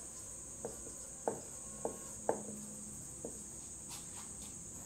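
Marker pen writing on a whiteboard: a few faint, short taps and scratches as letters are drawn, over a steady high-pitched hiss.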